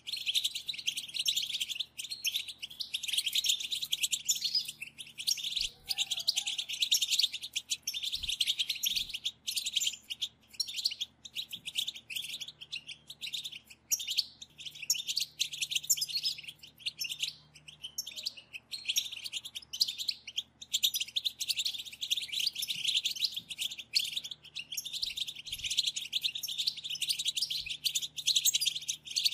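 A group of European goldfinches calling together in a dense, rapid twittering chatter, the excited 'batbata' calls, with only brief pauses.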